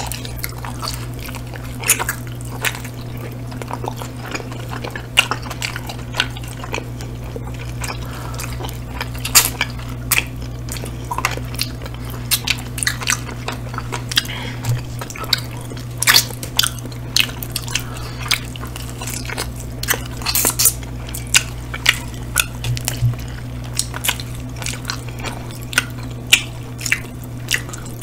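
Close-miked chewing and mouth sounds of two people eating pepperoni pizza and hot chicken wings dipped in sauce: a run of irregular sharp clicks and wet sounds, over a steady low hum.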